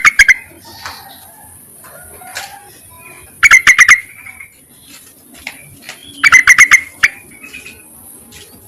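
Female yellow-vented bulbul calling to males: three quick bursts of rapid, sharp chattering notes, a few seconds apart, with faint chirps between them.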